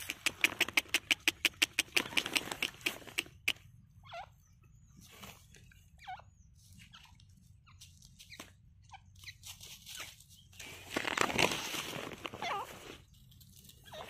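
Grey francolin foraging in dry grass and leaf litter: a quick run of rustling clicks at first, then scattered soft rustles and a few short faint notes, with a louder burst of rustling near the end.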